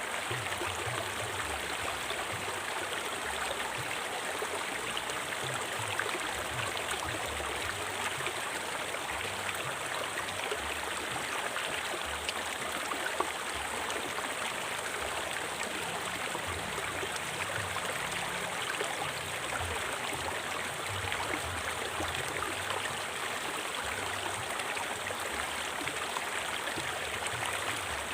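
A forest river flowing steadily, water splashing and gurgling over rocks.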